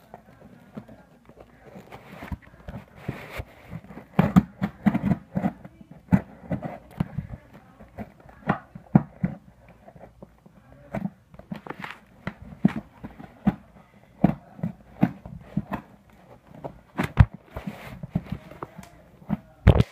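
Handling noise: irregular knocks, taps and rubbing close to the microphone, some sharp and loud, busiest from about four seconds in.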